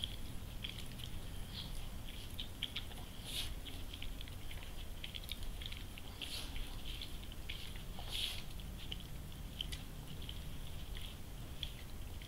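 Doberman Pinscher licking and nibbling at her own coat while grooming herself: irregular wet licking, slurping and smacking clicks, with a few louder smacks.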